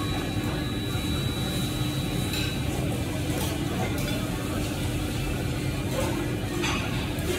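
Steady low rumble of restaurant background noise, with a few brief, soft eating sounds as ramen noodles are lifted from the bowl with chopsticks and eaten.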